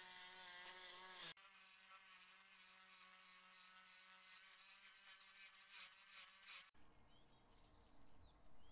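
Faint, steady buzz of a small electric power tool motor, cut off abruptly about a second in and picking up again at once, then giving way near the end to a quieter low rumble with a few small squeaks.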